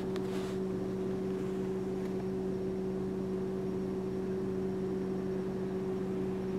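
A steady low mechanical hum with a constant pitch, unchanging throughout.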